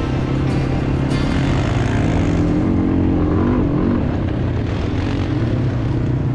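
Small off-road vehicle engine running steadily, its pitch rising and falling as it revs around the middle.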